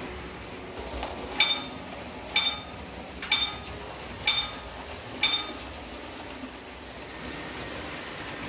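Five ringing bell-like strikes, evenly spaced about a second apart, each dying away quickly, over the steady rushing running noise of a model railway layout.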